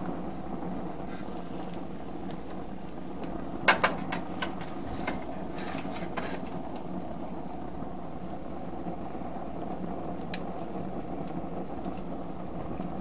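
Steady low rushing of a Weber gas grill's lit burners, with a few sharp clicks of a metal spatula against the griddle plate, the loudest a quick pair about four seconds in and another near ten seconds.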